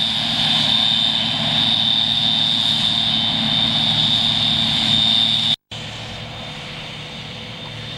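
Combine harvester at work: a steady mechanical drone with a constant high whine. It cuts out abruptly about five and a half seconds in and comes back quieter and more distant.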